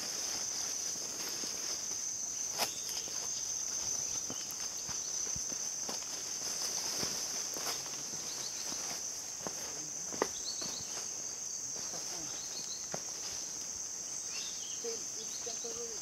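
Forest insects droning steadily at a high pitch, over a hiker's footsteps on a dirt trail. Two sharp clicks stand out, about three seconds in and again about ten seconds in.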